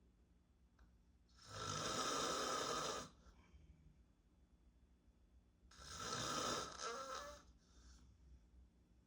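A sleeping man snoring close to the microphone: two long, loud snores about four seconds apart, with a fainter breath just after the second.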